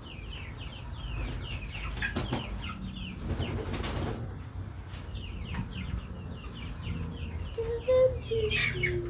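Chickens cheeping with a steady run of short high calls, several a second, with a burst of wing flapping about three seconds in and a louder call near the end.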